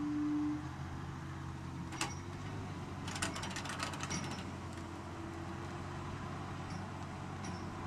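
Diesel engine of a John Deere 9410 articulated tractor running steadily while it tries to pull a loaded dump truck stuck in a soft field. A sharp click sounds about two seconds in, and a short run of rattling clicks follows about a second later.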